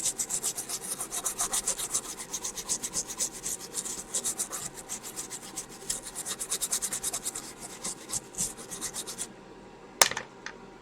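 A circuit board being scrubbed clean with alcohol: quick back-and-forth rubbing strokes, about five a second, that stop near the end, followed by one sharp click.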